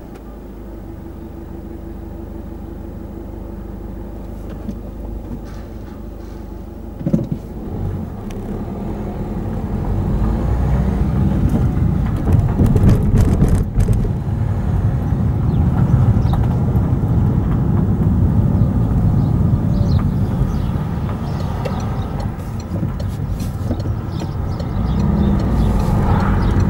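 Car engine idling with a steady low hum, then the car pulling away and driving along the road, engine and tyre noise growing louder from about ten seconds in. A short knock comes about seven seconds in.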